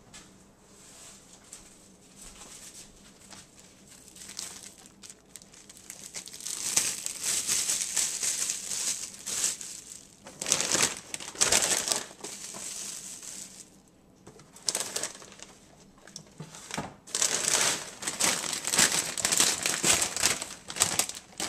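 Plastic bags crinkling and rustling in irregular bursts as they are handled: a clear plastic food bag being opened out and a potato chip bag moved. Faint at first, louder from about six seconds in.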